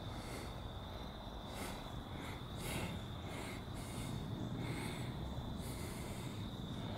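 Steady high-pitched insect drone, like crickets, over a low outdoor rumble, with several short breathy puffs from about one and a half seconds in to past five seconds.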